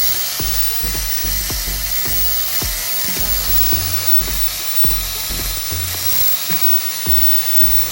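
Power grinder grinding the threads off a steel wheel stud, a steady high-pitched hiss, over background music with a steady beat.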